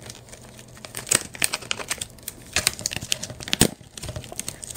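Clear plastic clamshell packaging being pried apart and handled: an irregular run of sharp crackles and clicks, loudest about three and a half seconds in.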